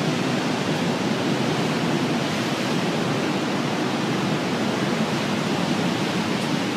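Hurricane wind and surf making a steady, loud rushing noise.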